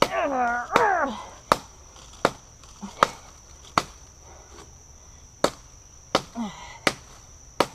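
Glock 78 field knife, a carbon-steel clip-point blade, chopping into a rotten fallen branch: sharp strikes about every three-quarters of a second, about ten in all, with a short pause around four to five seconds in. A man's voice grunts over the first strikes and briefly again near the end.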